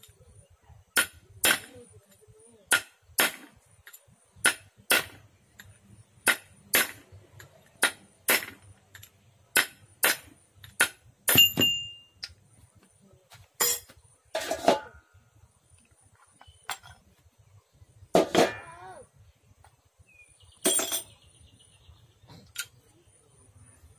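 Hammer blows on metal as a part is driven into a Kamco power tiller's gearbox housing. A steady run of sharp strikes, often in pairs, comes about one to two a second through the first half, and one near the middle rings out with a metallic tone. After that come a few scattered knocks and clinks, some with a short rattle.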